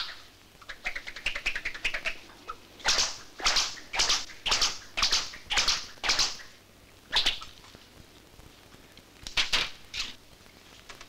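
A riding crop swished hard through the air again and again, each stroke a short whoosh. Seven come in a row at about two a second, then one more, then a few near the end. Before the swishes there is a quick run of light ticks.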